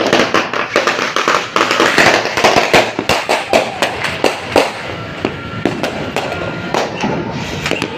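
Fireworks going off in a fast, dense string of sharp cracks and bangs, which thins out to scattered cracks after about five seconds.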